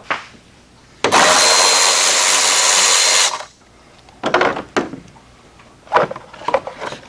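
Cordless drill/driver running steadily for about two seconds, backing out a fastener to free the car's air box, followed by a few short knocks and clicks of plastic parts being handled.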